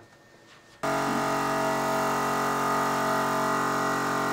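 Tuff Stuff Overland 12-volt portable air compressor switching on suddenly about a second in and then running steadily, pumping air into an off-road tire.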